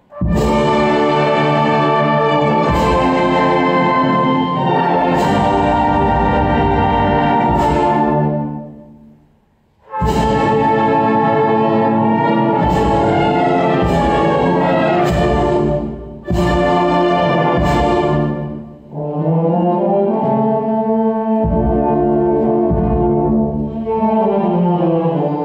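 Brass band playing a slow funeral march: loud, sustained brass chords punctuated by sharp percussion strikes. The music dies away about nine seconds in and then resumes, and from about two-thirds through it turns to a softer, lower melodic passage.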